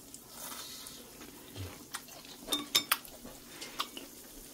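Kitchen utensils clinking and tapping against dishes and a pot: a few light, sharp clinks about two to three seconds in, one with a short metallic ring, and a single tap near the end.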